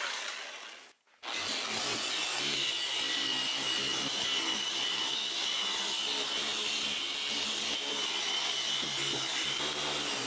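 Electric machine polisher with a wool pad compounding oxidised aircraft paint. It drops out about a second in, then runs steadily with a high motor whine as the pad works across the wing surface.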